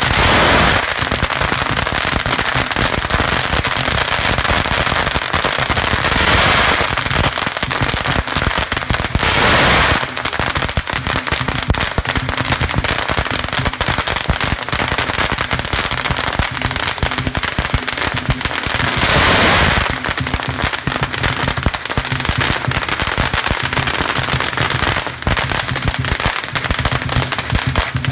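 Long strings of Chinese firecrackers going off in a dense, continuous crackle of rapid bangs, swelling into louder surges about a second in, around six and nine seconds in, and again near twenty seconds.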